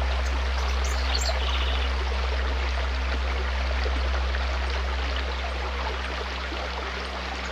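Forest stream rushing and splashing over rocks, a steady even wash of water, with a soft sustained low musical drone underneath. The whole sound begins to fade out in the last couple of seconds.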